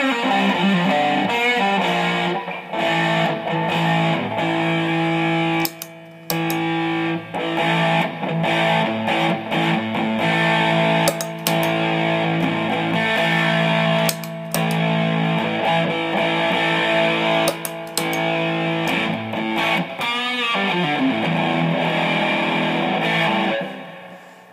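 Single-coil Stratocaster electric guitar played through a ProCo Rat distortion pedal, with distortion all the way up and the filter all the way down, into a Fender Blues Deluxe amp with a little reverb. It plays heavily distorted sustained chords and riffs, with short breaks about six seconds in and near twenty seconds, and rings out near the end.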